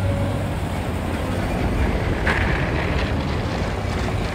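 City street ambience: a steady low rumble of traffic with an engine hum, and a short hiss a little over two seconds in.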